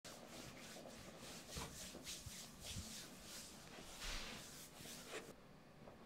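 Soft, repeated swishing of hands rubbing and kneading over bare skin in a massage, several strokes a second, faint. It cuts off abruptly about five seconds in.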